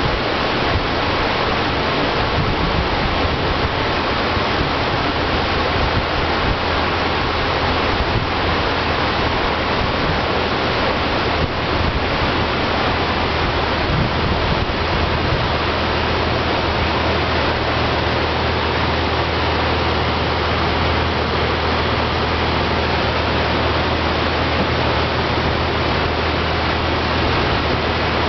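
Waterfall cascading down a series of rock steps: a steady, loud rush of falling water.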